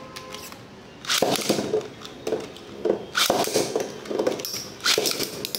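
Metal Storm Pegasus Beyblade tops being launched one after another into a plastic stadium. There are a few light clicks at first; from about a second in come repeated loud bursts as the tops are launched and clatter and clash on the stadium floor.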